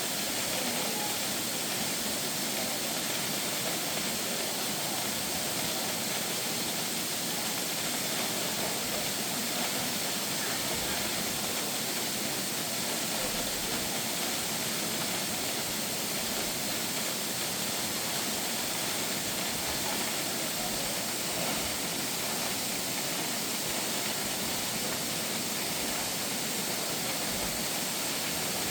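A steady, even hiss that stays level and unchanged throughout.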